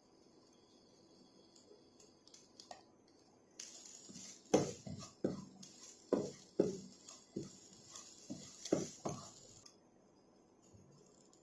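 Kitchen work: a run of about a dozen sharp knocks of a utensil at irregular half-second spacing, over a steady hiss that starts and stops abruptly.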